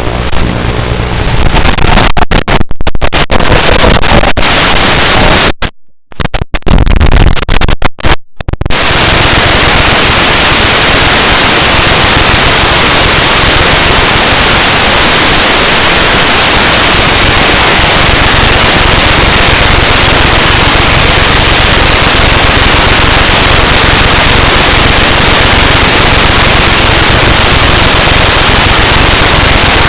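Loud, steady hiss like radio static, broken by several sudden drop-outs in the first nine seconds and then unbroken.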